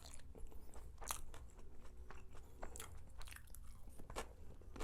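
A person chewing food close to the microphone: irregular mouth clicks and smacks, several a second.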